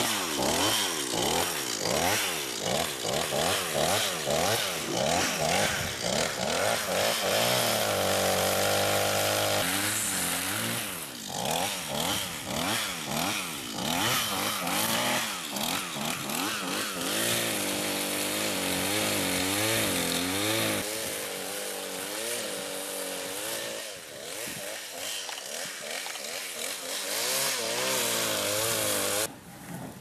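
Two-stroke chainsaw running, its engine pitch rising and falling over and over as it is throttled up and eased off, held high for a couple of seconds about a third of the way in. The sound drops away abruptly near the end.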